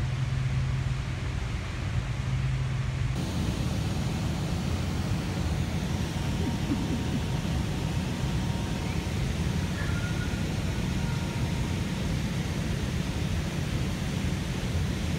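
A steady low hum, then about three seconds in a sudden switch to the constant, dense din of cotton gin machinery around the bale press and wrapping line.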